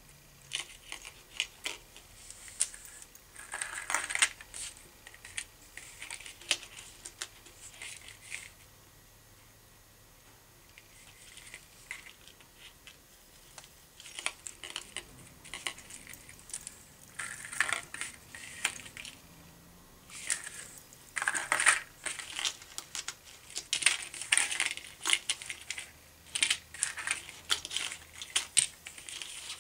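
Small metal snaps, swivels and spinner blade of a wire fishing rig clicking and clinking as it is handled and soft plastic grub lures are clipped on, in irregular bursts with a brief lull about nine seconds in.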